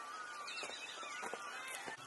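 A few light clicks and taps from metal skewers handled over a clay dish, with birds calling in the background.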